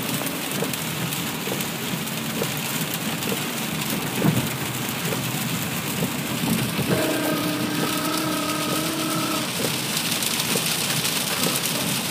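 Rain falling on a moving car, heard from inside the cabin, a steady hiss mixed with road noise. About seven seconds in, a steady pitched tone sounds for about two and a half seconds.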